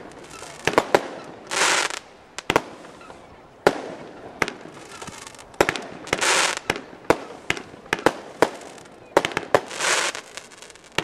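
Fireworks display: a rapid, irregular series of sharp bangs from bursting shells, with a short rushing hiss about three times.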